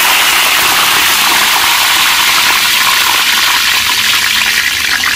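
Fresh curry leaves, mustard seeds and cumin sizzling in hot oil in an iron kadhai: a loud, steady sizzle as the tempering fries, with a few crackles near the end.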